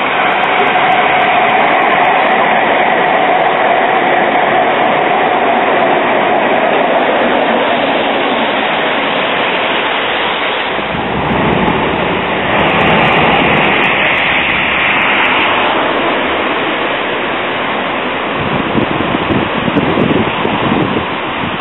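Low-floor light-rail trams (Bombardier Flexity Swift) running along the track and into the stop: a steady rolling rush with a high, even motor whine over the first several seconds, a brighter hiss for a few seconds past the middle, and a lower rumble near the end.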